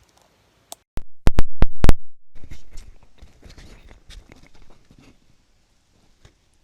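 Handling noise from a lavalier microphone being plugged into an adapter and fitted: five or six loud sharp knocks and pops in quick succession about a second in, then softer rustling and scraping clicks that die away around the five-second mark.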